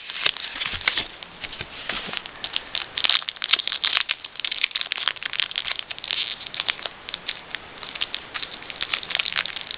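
Crinkling and crackling of a Pokémon card blister pack's plastic and foil packaging being handled and opened, in a dense run of irregular small crackles.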